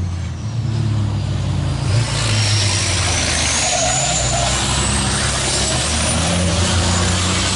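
A pack of diesel racing trucks running hard through a bend. The engine noise swells about two seconds in as the trucks come close, with a high whine rising slowly in pitch over it.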